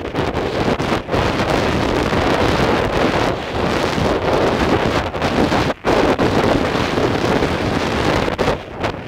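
Wind rushing over a handheld camera's microphone during a fast ski descent, a loud steady noise that drops out briefly about a second in and again just before six seconds.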